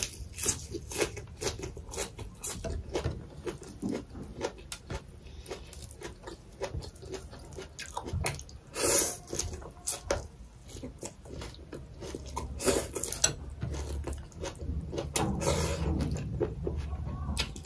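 Close-up chewing of raw leafy greens, with many small wet mouth clicks and a few louder crisp, crunchy bites spread through.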